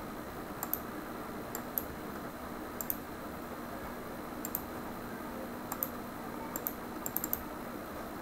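Sharp clicks of computer mouse buttons, mostly in close pairs, every second or so, with a quick run of several clicks near the end, over a faint steady hum.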